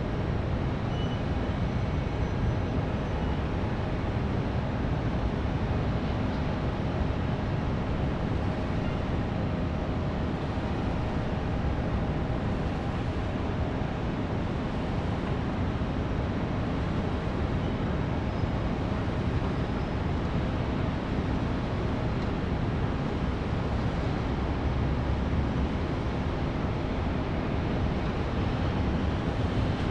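Distant city traffic: a steady, even hum of many vehicles, heaviest in the low rumble, with no single car standing out.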